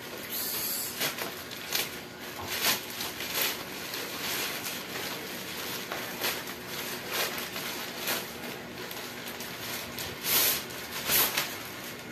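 Plastic courier pouch being torn open and handled, crackling and rustling in irregular bursts, with a longer rip about half a second in and louder rustles near the end.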